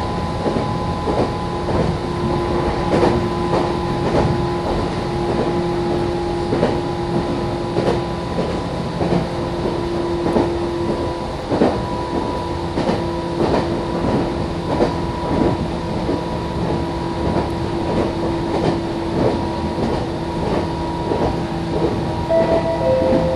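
Meitetsu electric commuter train running at steady speed, heard from inside the car: a steady whine from the motors and gears over rumble, with regular clacks of the wheels over rail joints. A short two-note chime sounds near the end.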